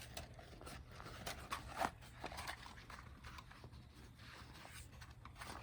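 Faint handling noises: scattered light clicks, knocks and scrapes with some rustling, the sharpest knock about two seconds in.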